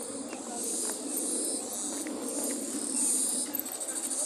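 Insects in the trailside vegetation, trilling in repeated high-pitched swells over a low, even background murmur.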